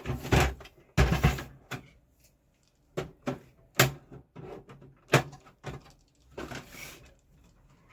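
Plastic casing of a Canon LBP 2900 laser printer being handled and pried open: a string of irregular clicks, knocks and short rattles.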